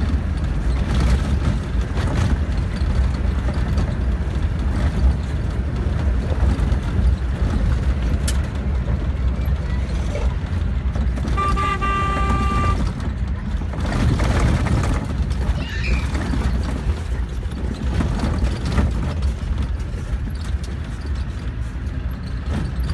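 Vehicle engine and road rumble heard inside the cabin while driving on a rough dirt road. A horn toots once, about a second long, around the middle.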